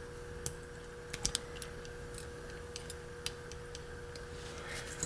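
Scattered light clicks and ticks of lock picking tools being handled and put into the keyway of a Stanley shrouded 6-pin padlock, the loudest cluster about a second in, over a faint steady hum.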